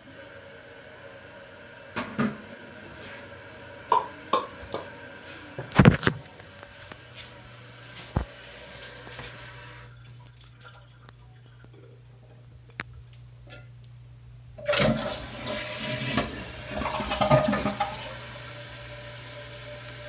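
Kohler Cimarron toilet flushing, with water rushing and splashing in the tank for about three seconds, starting about fifteen seconds in. Before it come a few sharp knocks, the loudest about six seconds in, and a low steady hum runs under the second half.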